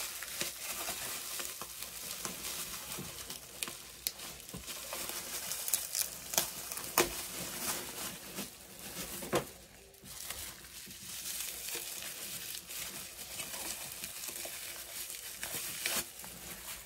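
Packaging crinkling and rustling as items are unwrapped by hand, with scattered sharp clicks. There is a brief lull about ten seconds in.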